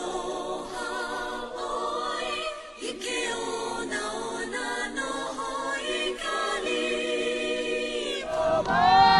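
A choir singing a cappella, several voices in harmony with no instruments. A louder vocal passage comes in near the end.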